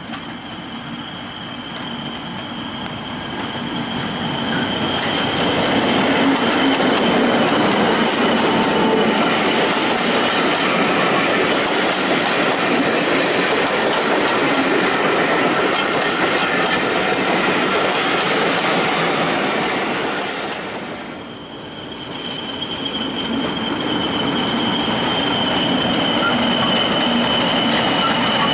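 English Electric Class 40 diesel locomotive passing with a train of coaches. Its steady high turbocharger whistle grows as it approaches, then wheels clatter over the rail joints as the coaches go by. After a short dip the sound picks up again, with the loco's whistle steady over the train.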